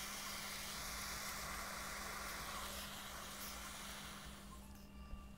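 Butane soldering iron burning with an open flame: a steady gas hiss that fades away near the end.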